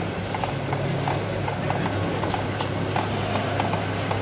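Model live-steam engine running and driving a belt-driven model workshop. It makes a rhythmic light clicking and clatter, about three clicks a second, over a steady low hum.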